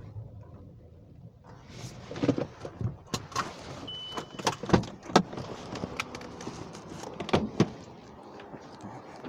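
A run of irregular clicks and knocks with a light hiss, from handling things inside a car, over a low hum that fades within the first second or two.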